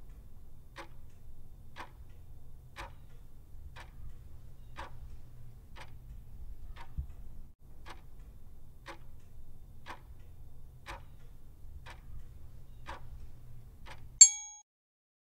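Quiz countdown-timer sound effect: clock-like ticks about once a second over a low steady drone. About fourteen seconds in it ends with a short bright chime marking time up and the answer reveal.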